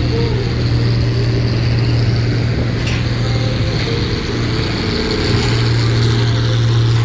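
Farm tractor's diesel engine working under full load as it pulls a weight-transfer sled, a steady loud drone that dips briefly a little past the middle and then picks up again as the tractor comes close.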